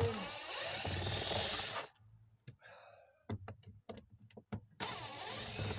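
Cordless screw gun running in two bursts, the first about two seconds long and the second about a second and a half, while it backs out a door-panel screw. A few sharp clicks come in the gap between the two bursts.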